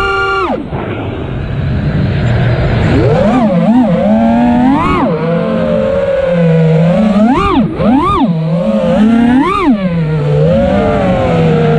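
ImpulseRC Apex HD FPV quadcopter's brushless motors and propellers whining, the pitch swooping up and down with the throttle. The pitch falls steeply right at the start, then several quick, sharp rises come in the second half.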